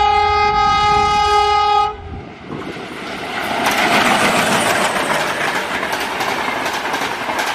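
Indian Railways passenger train hauled by diesel locomotives: one long horn blast of about two seconds that cuts off abruptly. The train then rushes past at speed, its wheels clattering over the rail joints, loudest a couple of seconds later.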